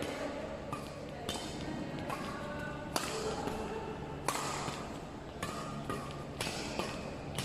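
Badminton rally: a shuttlecock struck back and forth by rackets, a sharp crack about every one to one and a half seconds, each ringing briefly in a large hall. Short sneaker squeaks on the court floor fall between the hits.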